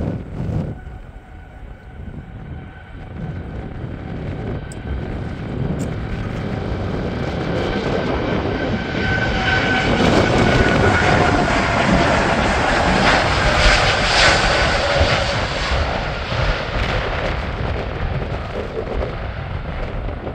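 Boeing 787 jet airliner's twin turbofan engines at take-off thrust during the take-off roll. The engine noise builds from a couple of seconds in to its loudest around the middle, with a whine falling in pitch as the aircraft passes, then eases slightly as it moves away.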